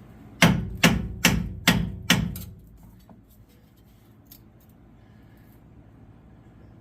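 Five quick hammer blows, about two a second, on the stuck rear leaf-spring lift block of a Chevy Silverado, trying to drive it out from between the spring and the axle, followed by a few faint clicks.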